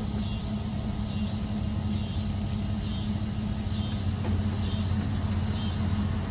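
A vehicle's engine running, a steady low hum with no change in speed.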